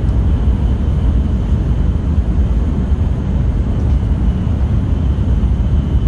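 Steady running noise inside the passenger cabin of an N700S Shinkansen at speed: an even rumble, strongest in the bass, with no distinct events.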